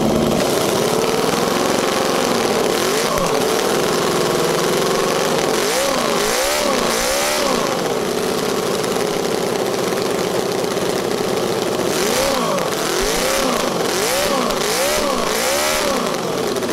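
Miniature V12 model engine running, blipped by hand at the throttle: its pitch rises and falls in quick revs, a few around six to seven seconds in and a run of them from about twelve seconds on, settling back to idle between.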